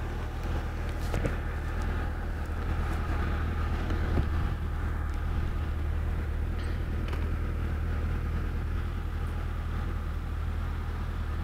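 Sport motorcycle engine idling steadily while the bike stands at the curb.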